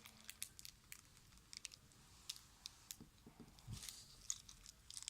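Faint, irregular clicks and crackles of slime being squeezed and handled by hand.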